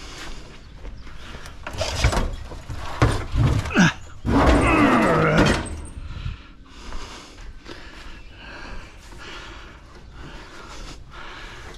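Scrap metal being handled: several knocks and clanks, then a loud scraping drag lasting about a second and a half, starting about four seconds in.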